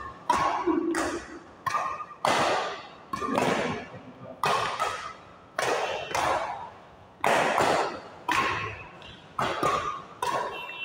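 Badminton rackets striking a shuttlecock back and forth in a fast rally, a sharp hit roughly every second, about a dozen in all. Each hit echoes and dies away in a large hall.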